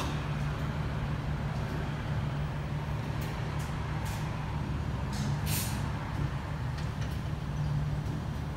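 Steady low mechanical hum with a few short hisses about three and a half seconds in and a longer hiss about five and a half seconds in.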